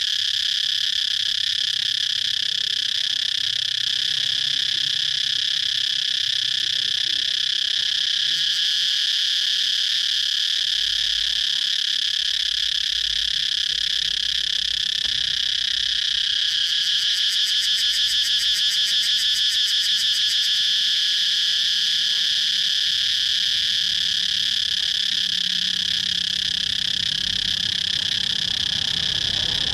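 Cicadas calling in a steady, unbroken high buzz, with a faster pulsing for a few seconds past the middle.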